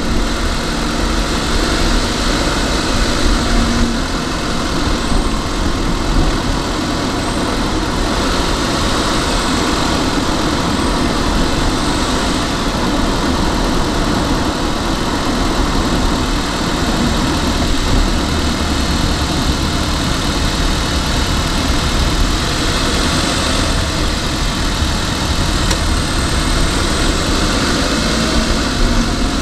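A car driving along a town road, heard from inside the cabin: steady engine and road noise.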